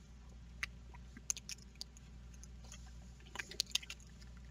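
Faint scattered clicks and ticks of small metal and plastic parts being handled, as needle-nose pliers work the brake-lever return spring of a Shimano 105 ST-5800 shifter into its hole. There is a quick run of clicks about three and a half seconds in.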